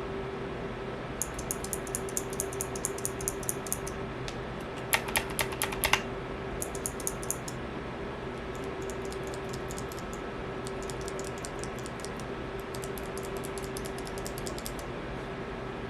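Keys being typed on a Punkston TH61 mechanical keyboard fitted with its alternate hot-swappable optical switches. There are runs of quick, crisp key clicks in several bursts, with a louder, heavier cluster of strokes about five seconds in, over a steady hum.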